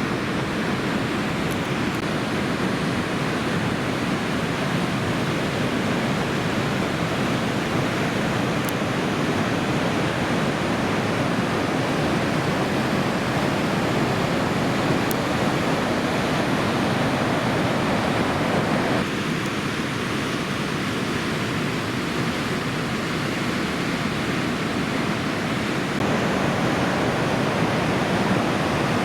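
Steady, continuous rushing of ocean surf breaking on a reef under a typhoon swell, an even wash of noise with no distinct single wave crashes.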